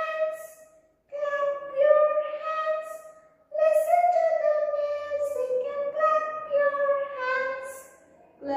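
A high voice singing long, held notes without clear words, in phrases broken by short pauses about one and three and a half seconds in.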